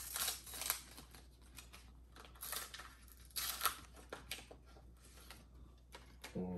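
A thin Pokémon trading card pack wrapper being torn open and peeled off the cards, in a few short ripping and crinkling tears.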